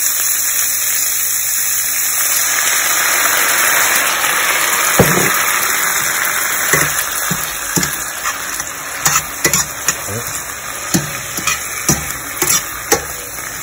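Green beans sizzling in a stainless steel skillet just after a splash of white wine is added. The hiss is loud and steady at first and eases a little, and from about five seconds in, metal tongs click against the pan as the beans are tossed, more often near the end.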